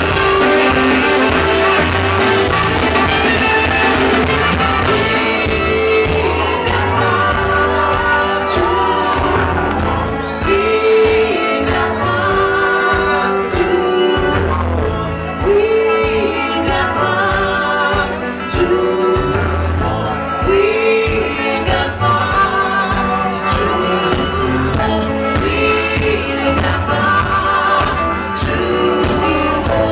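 Live funk band with a horn section playing loudly, a woman singing lead over it.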